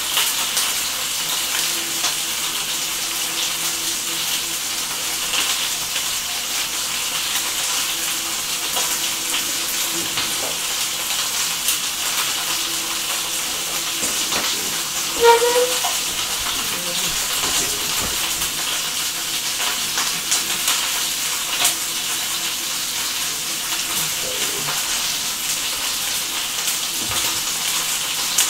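Chicken thighs frying skin side down in a skillet: a steady sizzle of chicken fat rendering in the hot pan. A brief voice sound cuts in about halfway through.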